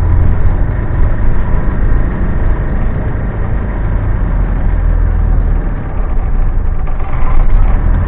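Engine and road rumble of a moving bus, heard from inside the cabin: a steady, loud low drone.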